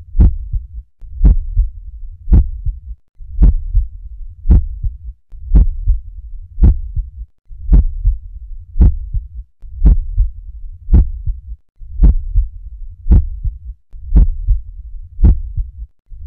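Normal human heart sounds heard through a stethoscope: a steady, regular lub-dub rhythm of a little under one beat a second.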